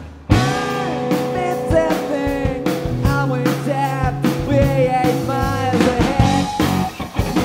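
Blues-rock power trio recording: electric guitar, bass guitar and drum kit playing together, with wavering, bent notes in the lead line. The band crashes back in right after a short break at the start.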